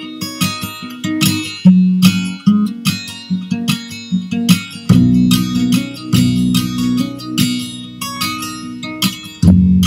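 Acoustic guitar music: picked and strummed chords with notes ringing out, with deeper bass chords coming in about halfway through.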